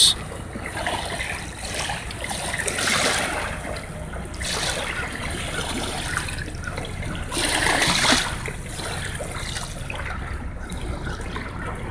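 Steady running, trickling water, like a small stream, with a few louder swells of rushing noise.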